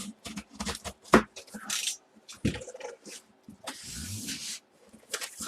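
A cardboard mystery box being opened and its packing handled: irregular rustling and scraping with a few sharp knocks, and a longer rustle about four seconds in.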